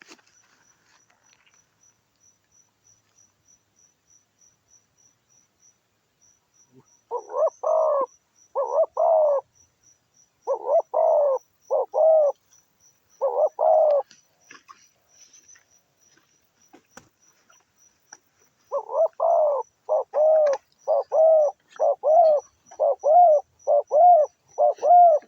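A dove cooing in two runs of repeated arched coo notes, the first starting about seven seconds in and the second, faster and louder, starting near the middle and carrying on to the end. Faint rapid insect ticking runs underneath.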